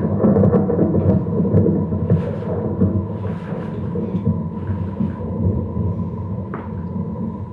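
A deep, continuous rumble like thunder, with a faint steady high tone over it, slowly fading toward the end.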